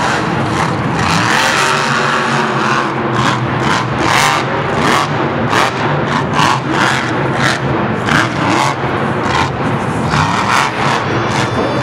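Monster truck's supercharged V8 engine revving hard in rapid repeated bursts as the truck drives and jumps.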